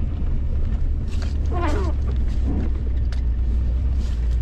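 Ford Explorer 4x4 driving through deep snow, heard from inside the cabin: a steady low rumble of engine and tyres, with scattered knocks and swishes as the truck pushes through the drifts at speed to keep from getting stuck.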